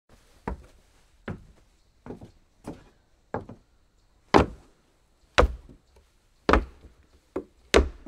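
Footsteps on a wooden floor: about ten steps at a walking pace, each a sharp knock on the boards. They grow louder from about halfway through.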